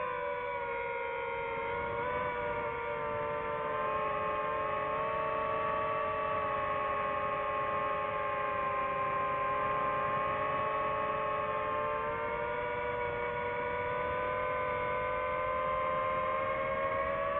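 DJI FPV drone's propellers whining in flight, several close tones that drift slightly up and down in pitch together as the motors change speed.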